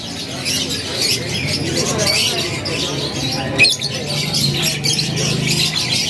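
Many caged canaries chirping and twittering together in a dense, continuous chatter, with faint voices behind and one sharp click about three and a half seconds in.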